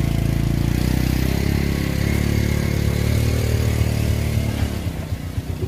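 A motorbike engine running close by, steady for several seconds, then fading away near the end.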